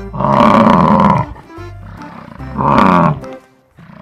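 A bison bellowing twice, each a deep, loud call that slides down in pitch; the first lasts about a second, and the second, shorter one comes about two and a half seconds in. Background music runs underneath.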